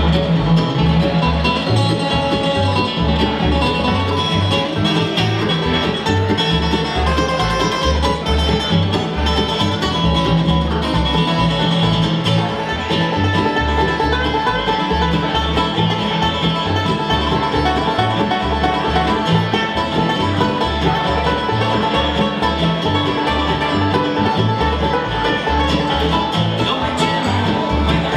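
Live bluegrass band playing instrumentally: upright bass plucking a steady beat under acoustic guitar and mandolin, with the banjo taking a lead break at the microphone.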